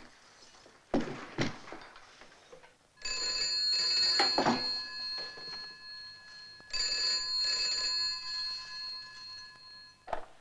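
Telephone bell ringing twice, each ring a long stretch of steady bell tones, after two short knocks about a second in.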